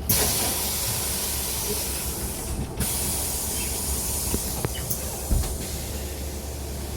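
Sudden hiss of compressed air released by the MAZ-303E23 electric bus's pneumatic system, starting abruptly and running on with a brief break near three seconds, over the bus's low hum. A low thump about five seconds in.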